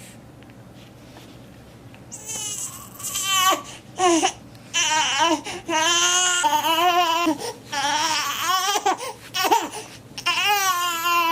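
A baby crying: a run of long, high-pitched cries, each bending up and down in pitch, starting about two seconds in after a quiet stretch.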